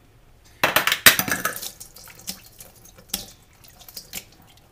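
Brine from a jar of pickled artichoke quarters poured out into a stainless steel colander in a sink, splashing for about a second, then a few separate drips and light knocks as the jar is shaken over it.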